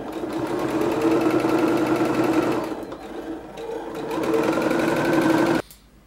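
Singer electric sewing machine stitching a topstitching seam at stitch length 3: a steady motor hum with the fast rattle of the needle, easing off around the middle, then running again and stopping abruptly near the end as the seam's end is backstitched.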